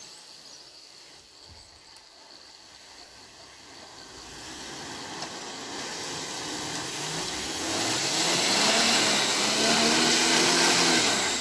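A truck driving through deep mud and standing water, coming closer and growing steadily louder. Its engine revs with the pitch rising and falling over a rising hiss of splashing water.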